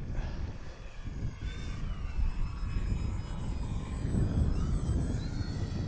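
An electric RC model plane's motor and propeller whine faintly overhead, rising and falling in pitch as it flies past, under a low rumble.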